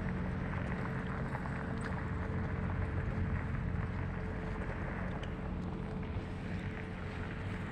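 A vehicle's engine running steadily, a low hum with a thin higher tone over a noisy rush.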